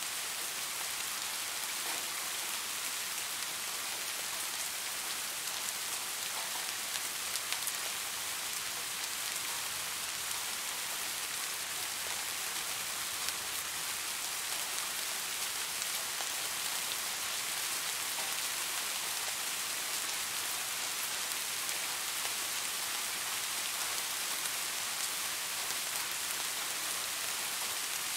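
Steady rain falling, an even hiss with occasional sharper drop ticks.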